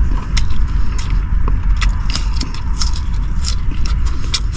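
Close-up chewing and crunching of raw garlic: a quick irregular string of sharp, crisp clicks over a steady low rumble.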